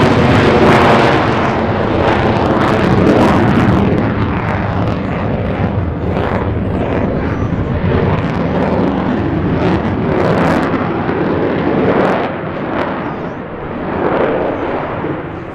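F-35A Lightning II's Pratt & Whitney F135 jet engine in afterburner, a loud roar with crackling as the fighter climbs away, its high end dulling after the first seconds.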